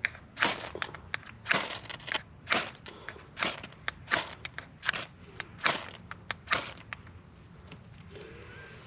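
Dry twigs and forest litter crunching in a steady rhythm, about one crunch a second, dying away about seven seconds in.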